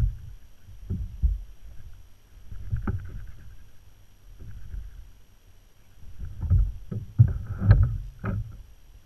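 Irregular low thumps and knocks through a plastic kayak's hull as the angler shifts and works the rod and reel, with a quick run of sharper knocks near the end.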